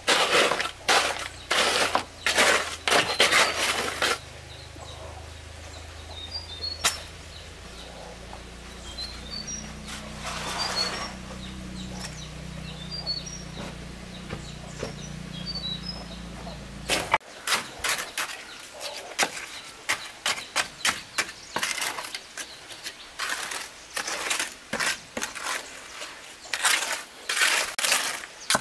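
Steel shovel scraping and slapping through wet concrete in repeated strokes. Then comes a stretch of low steady hum with a few bird chirps, which cuts off sharply. A hand trowel follows, scraping and patting wet concrete in quick repeated strokes.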